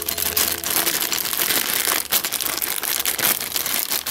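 Clear plastic zip bag crinkling and crackling as hands handle and open it, with many close, dense crackles.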